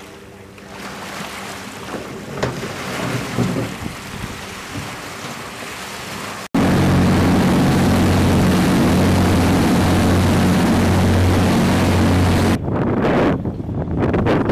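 Combat Boat 90's diesel engines running. At first they are a moderate hum under water washing on the shore. About six and a half seconds in, they abruptly become loud and steady, heard on board at speed with the rush of water from the wake, then drop away near the end.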